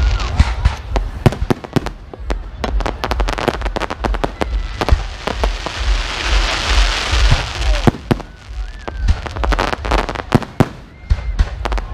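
Aerial fireworks display: a rapid, dense string of shell bursts and bangs, with a spell of crackling hiss about halfway through.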